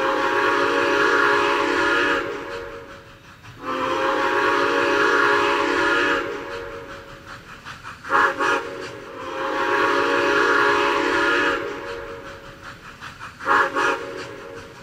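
Steam locomotive whistle sounding a series of blasts: two long ones, a short one, another long one and a short one near the end, each a steady chord of several tones.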